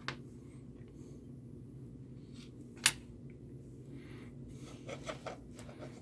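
Quiet handling of a roll of thick padded double-sided tape as pieces are cut for mounting a blower fan, with one sharp snip about three seconds in and soft rustling and handling noises after it, over a low steady hum.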